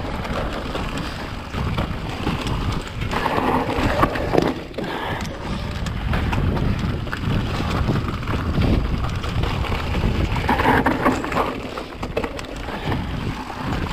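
Bicycle riding over a rough trail: uneven tyre rumble over the ground with wind noise on the microphone.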